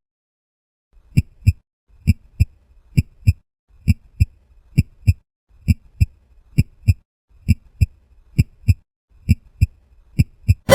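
Heartbeat sound effect: pairs of low thumps in a steady lub-dub rhythm, a little more than one beat a second, starting about a second in.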